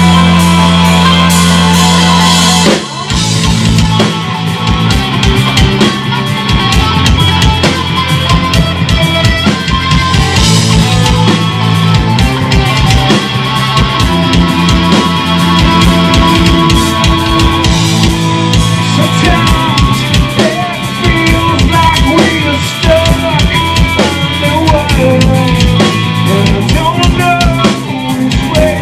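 Live rock band playing loudly: a held low chord rings for the first few seconds, then the drum kit, bass and electric guitars come in together and drive on with steady drumming.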